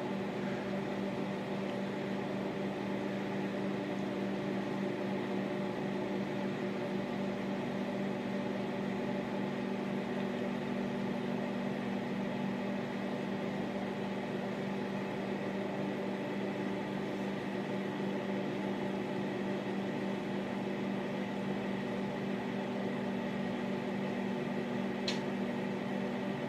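Old microwave oven running with a whole egg in its shell inside: a steady electrical hum. One faint click near the end.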